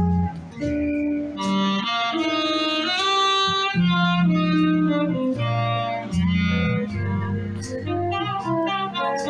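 Saxophone-led live band playing: a saxophone melody over bass notes, drums and electric guitar.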